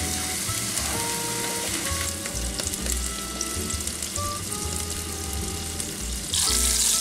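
Ground-beef patties sizzling in a hot cast-iron skillet as a steady hiss that gets louder near the end.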